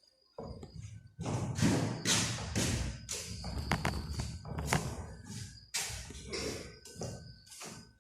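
Repeated knocks and thuds, several a second, with faint steady high tones under them.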